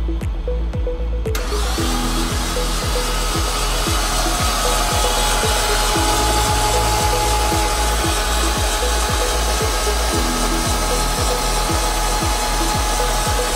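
Nissan RB25DET straight-six being cranked by its starter motor with all six spark plugs out, a steady mechanical whir that starts about a second in. This is a spark check on an engine that won't start, and none of the six plugs fires. Background music with a steady beat plays underneath.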